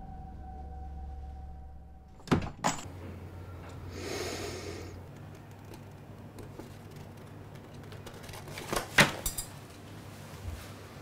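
A low sustained music drone ends about two seconds in; then a door is handled, with two sharp clicks, a brief rustle a little later, and a cluster of louder knocks near the end.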